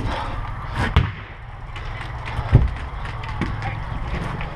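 A few dull knocks, the loudest about two and a half seconds in, over a steady low rumble: movement and handling noise on a camera carried by a moving player.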